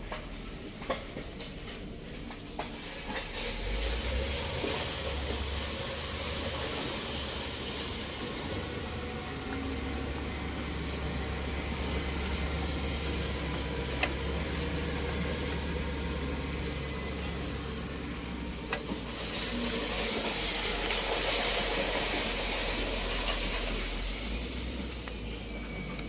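A steady hiss, swelling louder for a few seconds about three-quarters of the way through, over a low steady rumble, with a few faint clicks.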